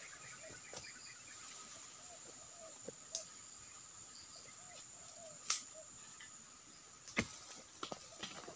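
A long-handled steel blade striking into the base of an oil palm and the soil around it: about five sharp chopping strikes at irregular intervals. Behind them runs a steady high insect drone with faint bird chirps.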